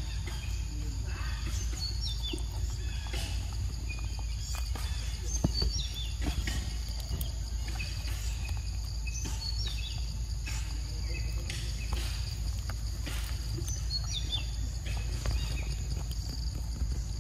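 Forest ambience: a steady insect chorus over a low rumble, with short falling bird calls several times and scattered soft clicks.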